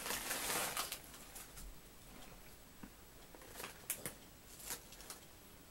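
Faint crinkling of a foil crisp packet being handled: a short burst in the first second, then a few brief crackles near the end.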